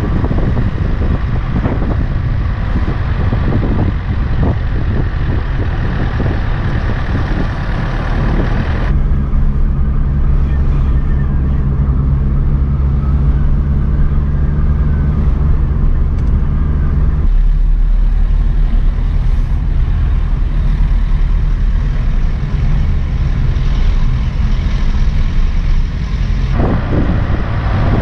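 Wind rushing over the microphone of a moving car for the first nine seconds, then the steady low drone of the small car's engine heard from inside the cabin while driving, its hum dropping lower about halfway through. The wind noise returns shortly before the end.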